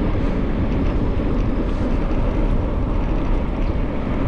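Steady wind rush on the microphone mixed with the rolling noise of bicycle tyres on pavement while riding.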